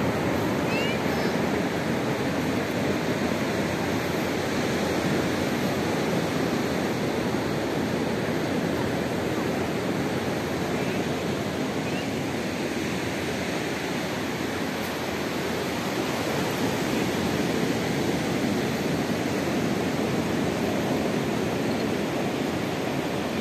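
Ocean surf breaking on a sandy beach: a steady, even rushing wash of waves.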